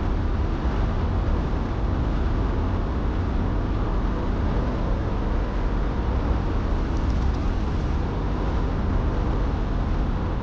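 Steady road and engine noise of a moving car, heard inside the cabin, with a heavy low rumble.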